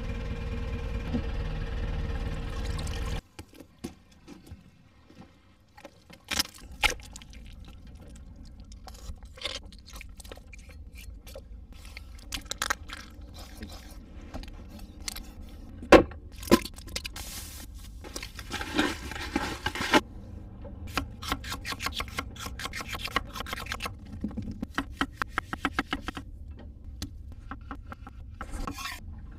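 Kitchen knife chopping and scraping on a wooden cutting board: separate sharp knocks in bursts, some as quick, even runs of cuts such as slicing garlic cloves. For the first three seconds a steady hum with a low rumble plays instead, cutting off abruptly.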